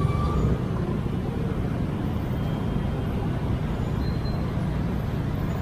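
Steady street traffic noise, a low rumble of passing vehicles with no distinct events.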